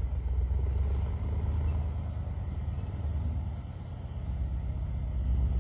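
Engine of an SUV driving slowly along the road, a steady low rumble.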